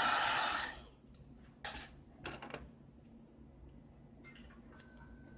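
Hot-air gun blowing, cut off sharply under a second in, followed by a few faint clicks and scrapes of small tools on the phone's internals.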